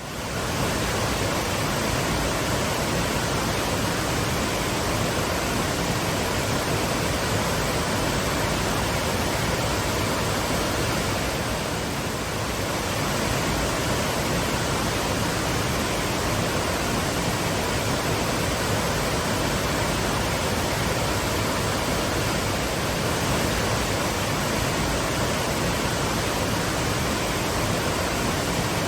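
Twin waterfalls pouring steadily: a constant full rush of falling water, easing off slightly for a moment about twelve seconds in.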